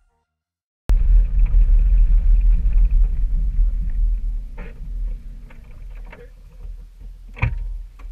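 Silence for about a second, then a loud low rumble from a car, heard through a camera mounted on its hood, easing after about four seconds. Two short knocks come later, the louder one near the end.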